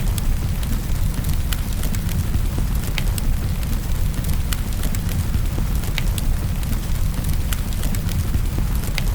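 Wood fire crackling, with sharp pops at irregular intervals roughly once a second, over a steady rain hiss and a deep rumble.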